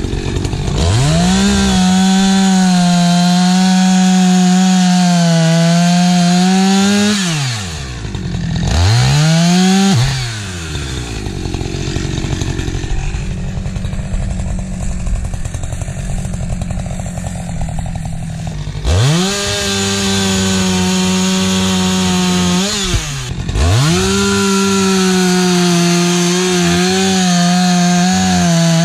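Two-stroke chainsaw bucking a hardwood log at full throttle, the engine pitch sagging slightly under load. It drops off the throttle for several seconds in the middle, then opens up again and cuts on, with a brief dip a few seconds before the end.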